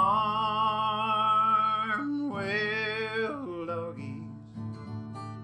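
Outro song: a voice holds two long sung notes over acoustic guitar, then the guitar rings on alone and fades out.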